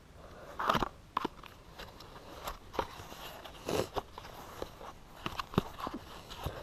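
Cardboard box of Winchester Super-X 20-gauge shotgun shells being opened by hand: crackling and scraping of the cardboard flaps, with small sharp clicks as the shells are handled inside.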